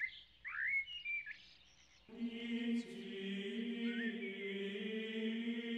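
A few short bird chirps in the first second and a half. About two seconds in, a steady droning chant of held tones comes in and holds, with one more chirp over it.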